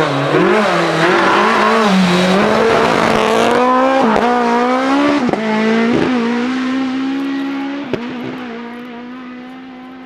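Mk2 Ford Escort rally car's engine at full throttle, accelerating away from a junction and climbing through several upshifts, each gear change a short drop in revs with a sharp crack. The engine note fades in the second half as the car goes away up the lane.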